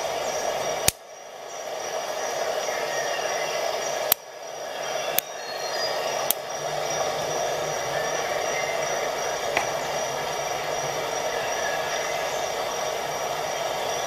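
A steady hum of background noise, broken by four sharp clicks: one about a second in and three between about four and six and a half seconds.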